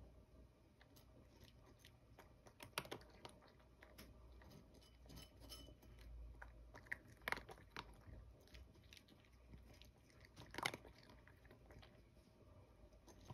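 Cat eating from a ceramic bowl: faint chewing and crunching, with a few louder clicks.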